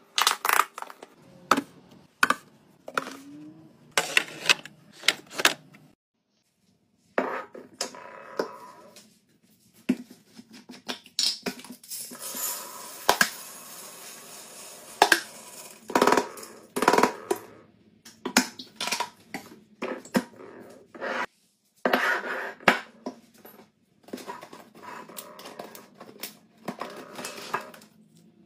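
A run of short restocking clips: clicks and knocks of plastic lids and containers on a countertop, with rustling packaging. About twelve seconds in comes a steady hiss of laundry scent beads pouring into a glass jar.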